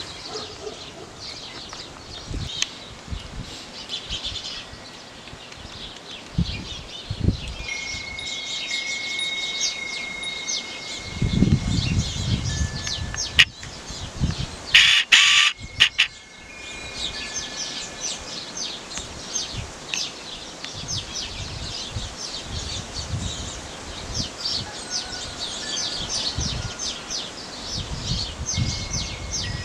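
Birds chirping steadily, with wind chime tones ringing out and held for a second or two several times. A brief loud clatter of clicks cuts in about halfway through.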